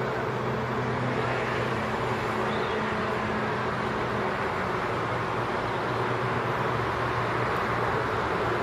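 Steady city traffic noise with a low, even engine hum under it.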